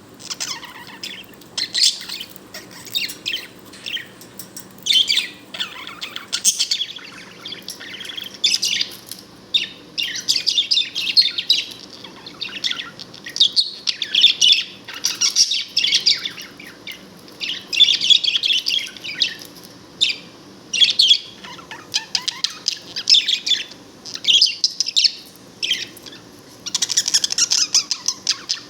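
Budgerigar chattering and warbling in quick runs of high chirps, one phrase after another with short gaps, the contented sound of a happy budgie.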